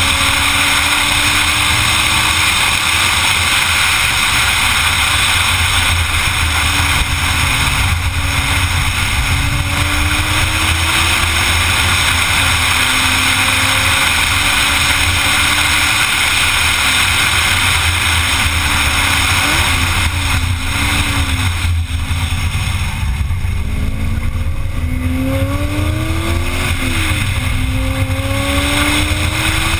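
Sports car at speed on a race track, heard from a camera mounted outside on the bodywork: a steady rush of wind over the engine. The engine's pitch rises and falls with throttle and gear changes, and in the last third it climbs and drops repeatedly.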